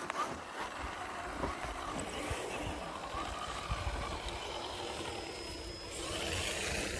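Radio-controlled scale crawler truck driving over rock, its electric motor whining with a pitch that rises and falls as the throttle changes.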